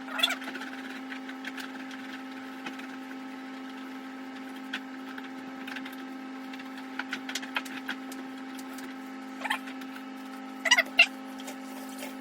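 Short squeaks and light clicks of items being handled and wiped inside a refrigerator, with a louder pair of squeaks near the end, over a steady low hum.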